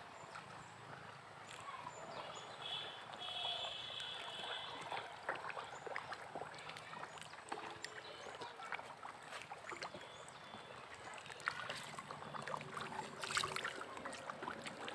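Small splashes, clicks and water sounds at a pond surface as tilapia take floating feed pellets. A bird chirps briefly a few seconds in.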